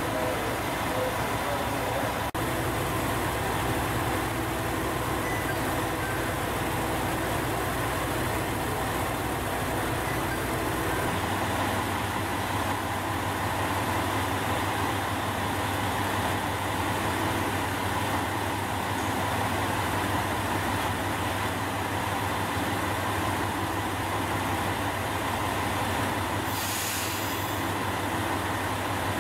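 HOT7000-series diesel multiple unit idling at a station platform, its diesel engines running with a steady low hum, with a brief hiss of air near the end.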